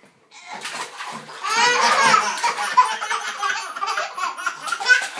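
Twin young boys laughing hard, starting a moment in and building to a high, squealing belly laugh about two seconds in, then continuing to giggle.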